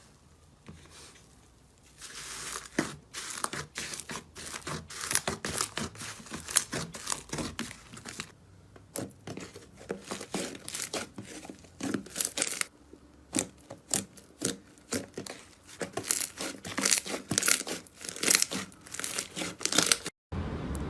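Slime being squeezed and worked by hand, making a dense run of sharp crackles and pops after a quiet first couple of seconds.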